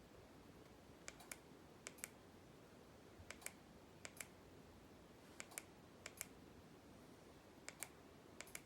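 Faint, sharp clicks coming in quick pairs, about eight pairs spread unevenly over quiet room tone.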